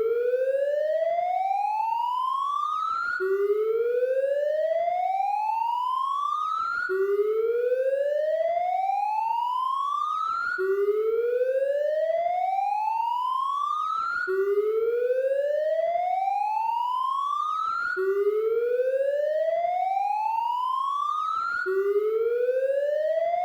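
Police car siren sounding a repeating rising wail: each sweep climbs steadily in pitch for about three and a half seconds, then drops back suddenly and starts again.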